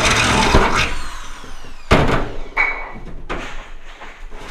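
Electric drill whirring and spinning down after boring out an old rivet, then several sharp knocks on the aluminum jon boat hull, some ringing briefly.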